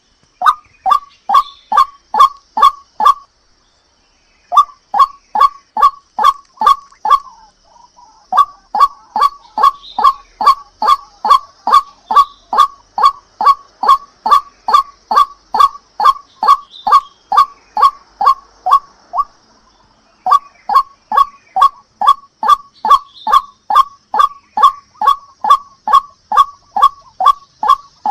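White-breasted waterhen (ruak-ruak) calling: a loud, rapidly repeated croaking 'kwak-kwak', about three notes a second, broken by two short pauses.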